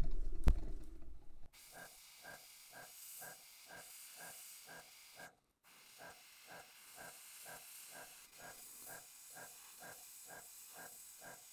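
Airbrush spraying paint: a steady hiss of air through the nozzle, with an even pulsing of about three to four beats a second beneath it, cutting out briefly around the middle. A loud low rumble and a sharp knock come first, in the opening second and a half.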